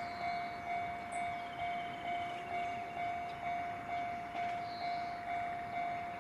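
Japanese railway level-crossing warning bell ringing, an evenly repeated ringing tone at about two strikes a second.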